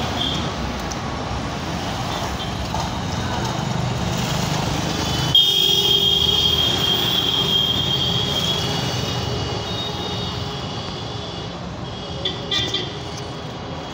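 Road traffic with motorcycles and other vehicles passing. A long vehicle horn sounds from about five seconds in and holds for roughly six seconds, and two short horn toots come near the end.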